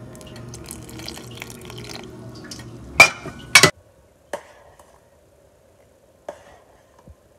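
Coconut milk pouring from a bowl into a pot for about three seconds, then two sharp clinks against the pot, the loudest sounds. A few lighter clinks of a metal ladle stirring in the pot follow.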